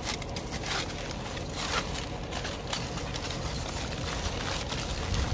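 Used, greasy aluminium foil being peeled off a grill drip pan and crumpled into a ball by gloved hands: irregular crinkling and crackling over a low rumble.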